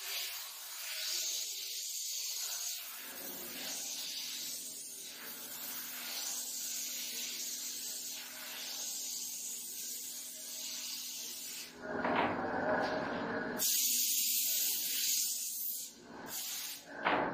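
Compressed-air paint spray gun with a gravity-feed cup hissing as it sprays paint onto a wall, in repeated passes, with louder blasts of air in the last few seconds. A steady low hum joins about three seconds in.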